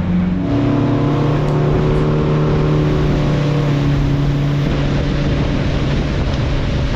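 A boat's engine running under way at a steady pitch, with wind and water rushing past.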